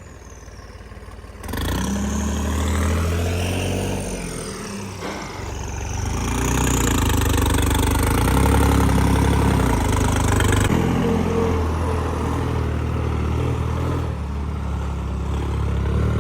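Diesel tractor engines labouring at high revs under heavy load, pulling a fully loaded brick trolley up a slope on a tow chain. The engine note rises and falls, and the sound starts and shifts abruptly, as at cuts.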